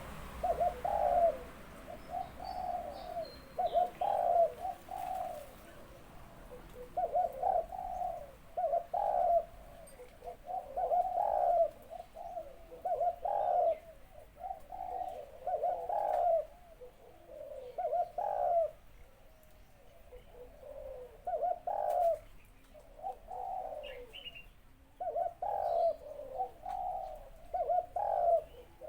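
Male zebra dove of a Malaysian song line cooing over and over, in short rolling phrases about every two seconds, in a small, clear voice. A few faint higher chirps come in between.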